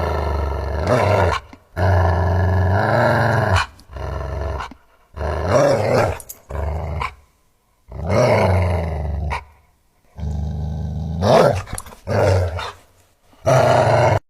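Angry dog growling and snarling in about nine bouts, each up to two seconds long with short pauses between, some rising and falling in pitch.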